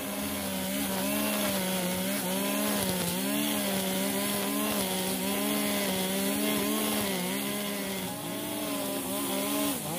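Petrol brush cutter engine running at high revs while cutting grass. Its pitch dips and recovers again and again as the cutting head loads up in the thick grass.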